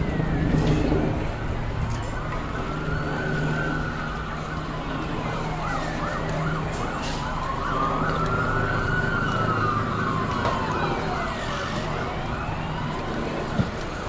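Emergency vehicle siren wailing in slow rises and falls, switching briefly to a fast yelp about six seconds in before returning to the slow wail.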